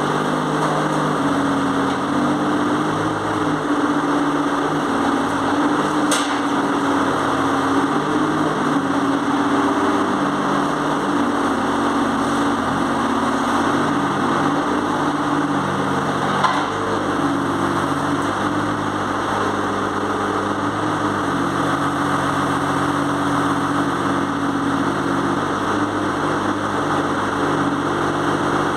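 JCB 803Plus mini excavator's diesel engine running steadily while the machine tracks and swings into position over the trench, with two faint brief knocks, about six seconds in and again about sixteen seconds in.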